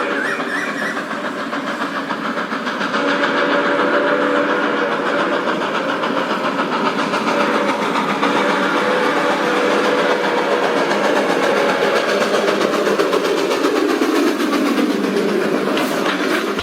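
A small engine or motor running steadily with a fast, even rattle, its pitch sagging a little near the end.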